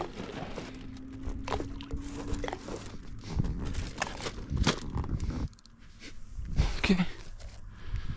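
Irregular knocks and bumps of fishing gear and bait being handled in an inflatable boat, with a short lull about five and a half seconds in.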